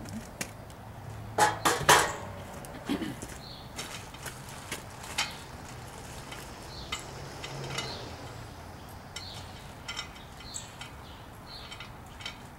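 Sheet-metal grill side panel clanking as it is handled and set down: a cluster of sharp metallic knocks about one and a half to two seconds in, then scattered lighter clinks of parts being handled.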